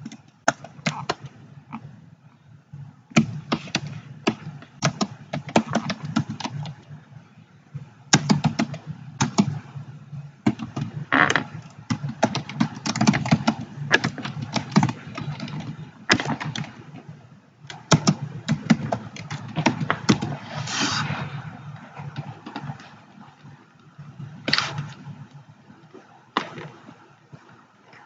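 Typing on a computer keyboard: quick runs of key clicks broken by short pauses.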